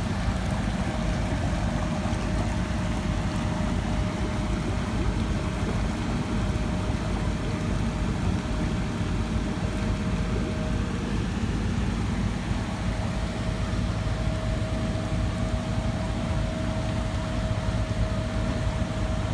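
Heavy diesel construction machinery running steadily: a constant low engine drone with a faint steady whine over it.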